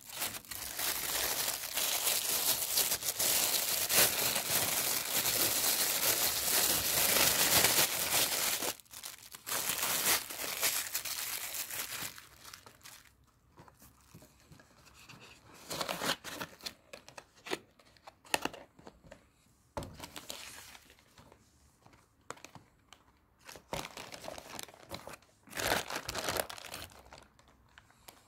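Plastic and paper packaging crinkling and rustling as it is handled. It is loud and almost unbroken for the first eight seconds or so, then comes in shorter scattered bursts with quiet gaps between.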